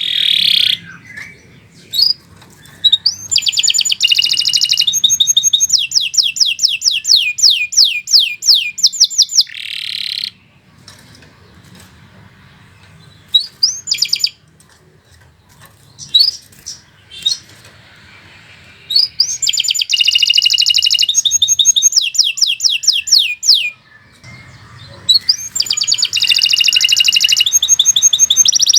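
Domestic canary singing long, continuous song phrases of fast repeated high notes and trills. Three long phrases are broken by short pauses holding a few single chirps.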